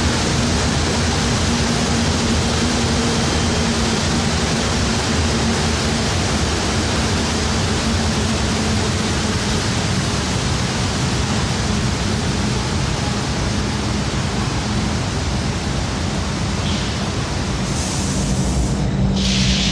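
Glass tempering furnace line running: a loud, steady rush of air with a low hum under it. Two short hisses come near the end.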